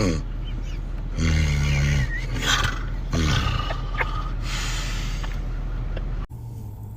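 A person snoring loudly, in snorting bursts of about a second, over a steady low hum that cuts off suddenly near the end.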